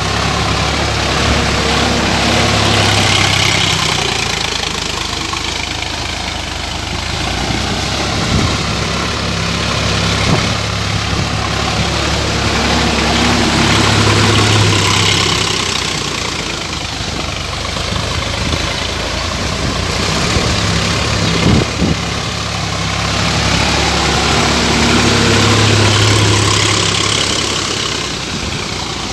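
Sonalika tractor's diesel engine running steadily, growing louder and fading back slowly about every eleven seconds.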